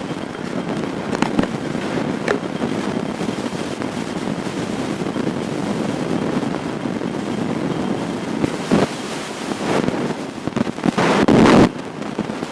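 Motorcycle running, with wind rushing over the microphone and scattered crackling knocks. A loud gust hits about eleven seconds in.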